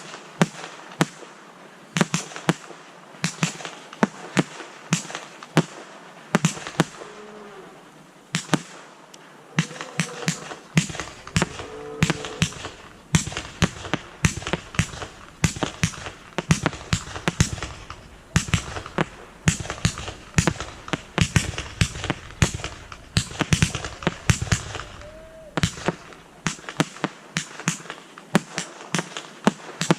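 Fireworks display going off: a rapid, continuous run of sharp bangs and cracks, several a second. Deeper booms join about a third of the way in and drop away near the end.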